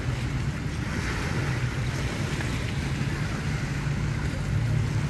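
A boat's engine idling low and steady, with small waves lapping and wind buffeting the microphone.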